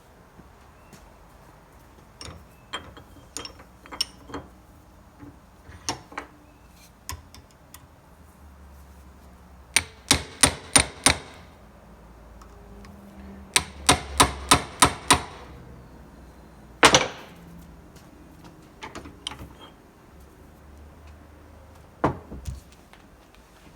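Hand impact driver struck with a hammer to loosen or tighten screws: two quick runs of sharp blows, five and then six at about three a second, then two single blows, with lighter taps and clicks of handling before them.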